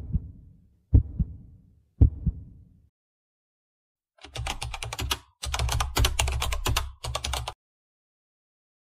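Three slow heartbeat thuds, one a second, each a double beat. Then, about four seconds in, some three seconds of rapid keyboard typing clicks with two brief breaks, stopping suddenly.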